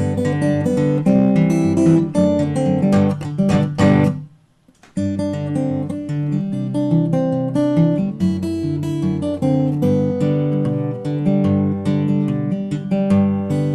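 Acoustic guitar strumming chords, with a short break a little after four seconds in before the strumming picks up again.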